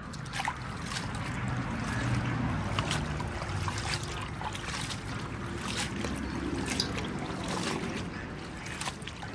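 Leafy greens being washed by hand in a stainless steel bowl of water: water sloshing and splashing, with a steady run of small splashes and drips as the leaves are pressed and swirled. A faint low hum sits underneath.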